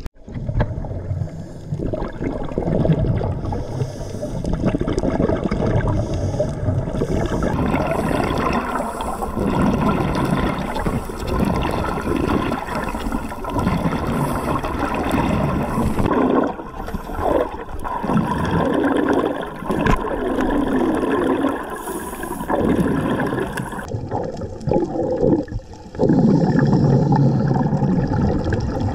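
Underwater camera audio: muffled water rushing and gurgling, swelling and fading unevenly, changing abruptly a few times where the footage is cut together.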